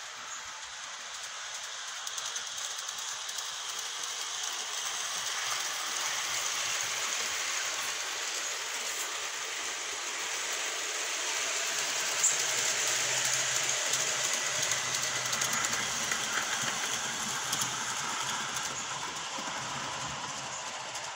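Garden-railway model steam locomotive and its carriages running on metal track: a steady rolling clatter of wheels on rail that builds to its loudest about halfway through as the train passes, then slowly fades.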